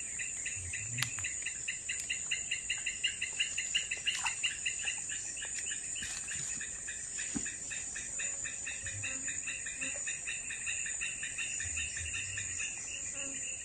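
Insects chirping in dense riverside forest: a fast, even pulsing trill over a steady high-pitched whine.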